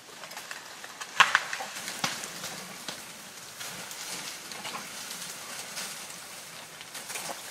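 African elephant browsing at close range: leaves rustling and twigs cracking as it pulls branches down with its trunk, with a sharp snap about a second in.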